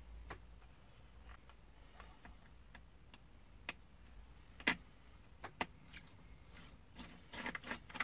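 Small screwdriver and tiny metal screws clicking and tapping against a laptop's plastic bottom case as screws are taken out: scattered light clicks, with a quick run of sharper clicks near the end.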